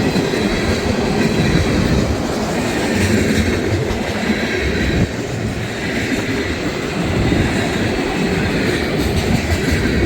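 Two CSX freight trains passing each other on adjacent tracks: the cars of an eastbound mixed-freight manifest and of a westbound intermodal train of mostly empty well cars rolling by, a steady loud noise of steel wheels on rail.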